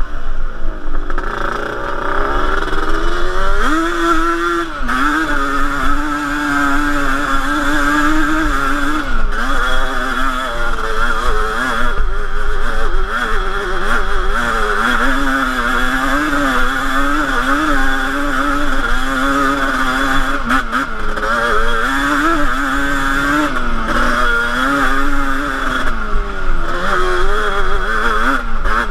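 Yamaha Banshee 350 ATV's twin-cylinder two-stroke engine, heard on board while riding. Its pitch keeps rising and falling as the throttle is worked up a rocky dirt trail.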